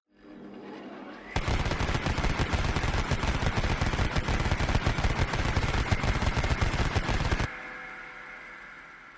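Sound effect of rapid automatic gunfire, a dense stream of shots. It begins about a second in after a quieter lead-in, runs about six seconds, cuts off suddenly and leaves a fading tail.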